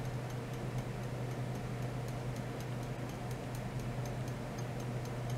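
Ultrasonic probe setup driven by a function generator, giving a steady low hum with faint, regular ticking at about three a second from the repeating sweep/pulse oscillation.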